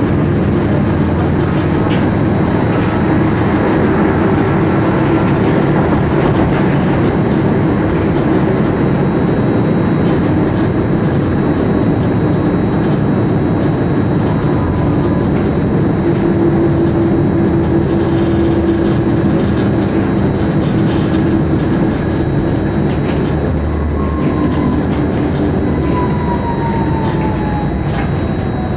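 Tram running along the line, heard from inside the car: a steady, loud rolling rumble of wheels on rails. Near the end a whine falls in pitch.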